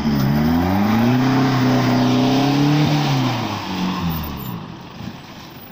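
Isuzu D-Max pickup's engine revving hard as the truck pushes through slippery mud. The pitch climbs over the first second and holds, then falls away from about three seconds in and fades by about four and a half seconds.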